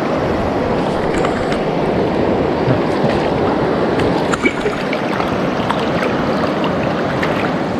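Fast, shallow river current rushing steadily, with a few faint ticks.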